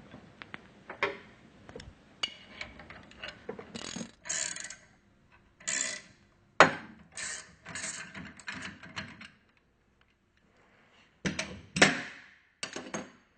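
Metal tools and pump parts clicking, scraping and clanking irregularly as the ball bearing is pulled off a DESMI NSL centrifugal pump shaft, with two sharp knocks, one about halfway through and one near the end, and a short quiet pause between them.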